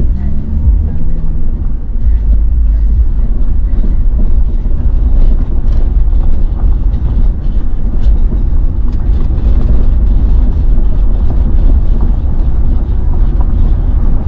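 Motor vehicle driving: a steady heavy low rumble of engine, road and wind noise. An engine note rises and then falls in the first couple of seconds.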